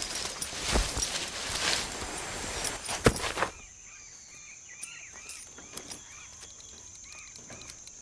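A man sliding down a rough rainforest tree trunk: a rough scraping, rustling noise of body against bark, with a sharp knock about three seconds in. It then drops to quieter rainforest ambience: a steady high insect drone with repeated short chirping calls.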